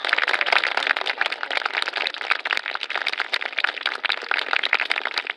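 A crowd of spectators applauding: dense clapping from many hands.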